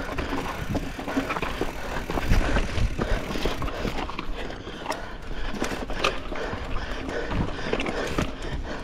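Mountain bike ridden over a rough dirt trail: tyres on the ground and the chain and frame rattling, with many irregular knocks over a steady low rumble.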